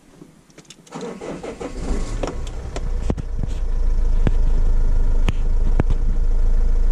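The Vauxhall Vivaro's 2.5-litre CDTI diesel engine is cranked about a second in, catches and settles into a steady idle, heard from inside the cab. A few sharp clicks stand out over the running engine.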